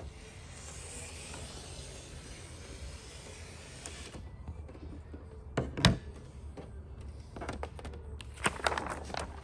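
A blade drawn along the paper release liner of a 3M air-release vinyl hood graphic, giving a long scratchy hiss for about four seconds. A single sharp knock follows about six seconds in, then crackling as the stiff film and liner are handled near the end.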